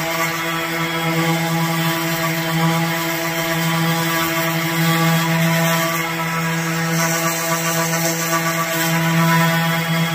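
Electric random orbital sander running steadily on a wooden tabletop. A constant motor hum at one unchanging pitch, with the hiss of the sanding pad on the wood.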